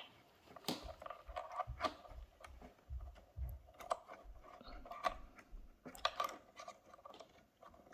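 Small clicks, taps and knocks of plastic water tubes and fittings being handled and pushed back onto their connections inside a DeLonghi espresso machine, with a few dull low thumps in the middle.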